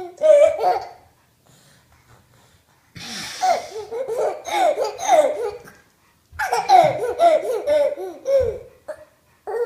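A toddler laughing in bouts. There is a short burst right at the start, then long repeated peals of laughter from about three seconds in and again from about six seconds in, with brief pauses between.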